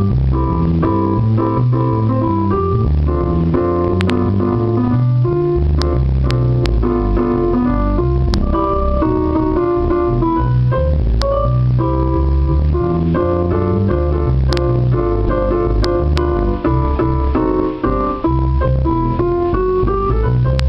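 Roland RD-300GX digital piano played in split mode: an acoustic bass sound walks a steady bass line on the lower keys while a piano sound plays chords and melody on the upper keys, like a small jazz combo.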